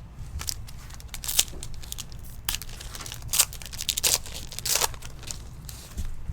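Trading card pack wrapper crinkling and tearing as packs are opened by hand, in a series of short rustles.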